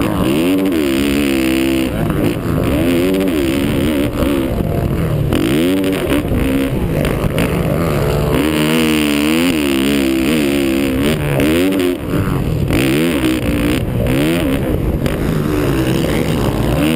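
Dirt bike engine, heard up close from the bike being ridden, revving up and dropping back over and over as the rider throttles, shifts and backs off through the turns; the pitch climbs and falls every second or two.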